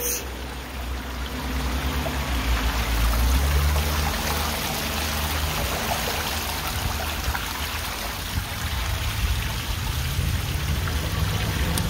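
Steady rushing of floodwater, with a low rumble underneath.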